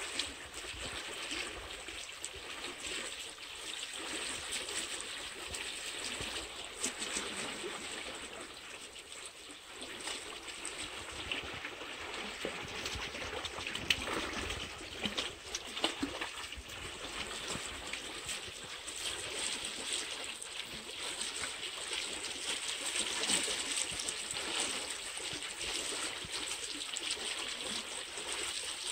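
Canal water flowing and trickling steadily over stones, with a couple of short sharp sounds about halfway through.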